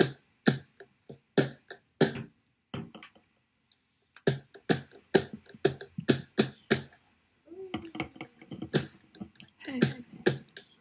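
Beatbox-style mouth percussion: sharp clicks and pops in irregular clusters, pausing briefly a few seconds in, then joined by a wavering vocal tone for the last few seconds.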